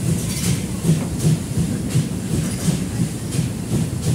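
A train running along the track, heard from aboard the moving locomotive: a steady rumble with the wheels clattering over the rails.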